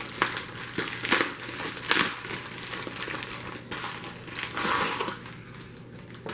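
Metallic plastic bubble mailer crinkling and crackling as hands open it and pull the contents out, in a string of irregular sharp crackles that thin out near the end.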